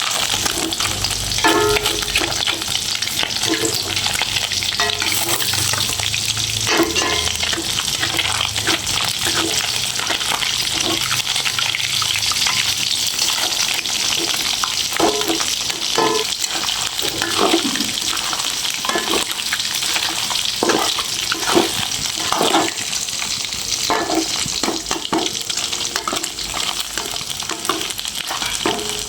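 Fish frying in hot oil in a pan, with a steady sizzle and frequent scrapes and knocks of a cooking utensil in the pan. A low hum runs under it for roughly the first twelve seconds.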